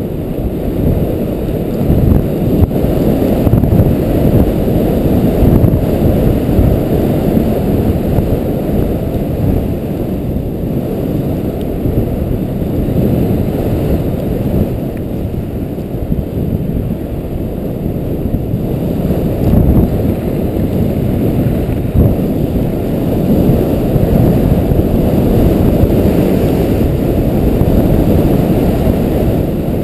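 Wind rushing over an action camera's microphone during a downhill ski run, mixed with the skis sliding over snow: a steady low rush that swells and eases a little with speed.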